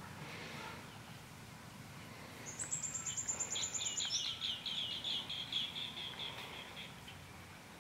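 A songbird singing: a high, fast trill starting about two and a half seconds in, running straight into a lower trill of rapid repeated notes that lasts about three seconds.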